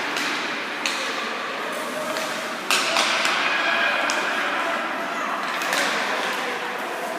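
Background chatter of people in a large echoing hall, broken by a few sharp knocks; the loudest knock comes a little under three seconds in.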